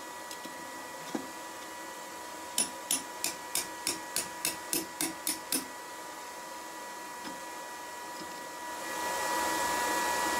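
Blacksmith's hand hammer striking the steel of a pair of knife tongs on an anvil: one knock, then a quick run of about ten light blows, about three a second, setting the tongs' jaws. A steady hiss rises near the end.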